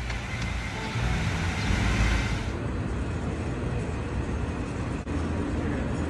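Outdoor city street ambience: a steady low traffic rumble, with a brighter hiss over it that cuts off abruptly about two and a half seconds in.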